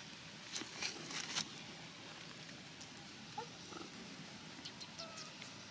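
Long-tailed macaques making a few faint, short calls, with crackly rustling in the leaf litter in the first second and a half.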